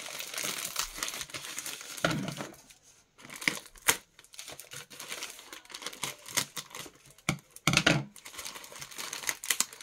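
Parcel packaging being crinkled and rustled as it is unwrapped by hand, in irregular handfuls with sharp clicks, and a louder burst of crinkling about eight seconds in.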